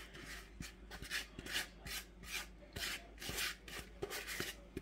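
Silicone spatula scraping buttered graham cracker crumbs out of a plastic bowl into a glass baking dish. It makes a run of short, faint scrapes, two or three a second.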